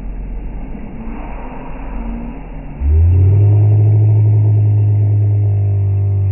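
Can-Am Maverick X3's turbocharged three-cylinder engine revving hard as the tyre spins in mud, slowed down so the sound is drawn out and deep. A rough rumble comes first; about three seconds in, a loud, steady, deep drone cuts in and holds.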